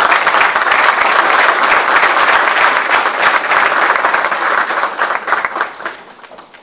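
Audience applauding: many hands clapping together in a dense, even patter that dies away a second or so before the end.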